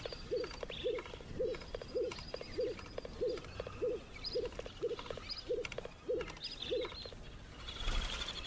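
Crested pigeons calling: a steady series of short low notes, about two a second, with higher chirps of small birds over them. Near the end there is a brief burst of wing noise with a whistle as a crested pigeon takes off.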